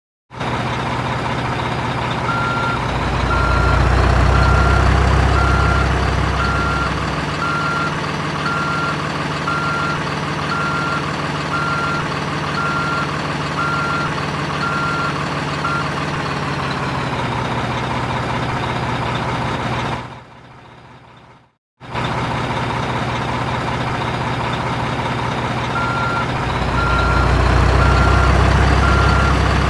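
Diesel truck engine running while its reversing alarm beeps steadily, about once a second. The beeping stops partway through, the sound cuts out for about two seconds, and then the engine and the beeping resume.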